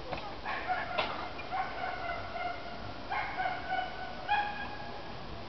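A series of about five short animal calls, each held at one steady pitch for under a second, over a steady rush of wind through leafy trees.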